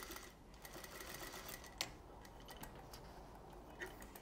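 Sewing machine stitching slowly and faintly as bias binding is eased round a neckline curve, then stopping. A sharp click a little under two seconds in, followed by a few lighter clicks as the work is handled.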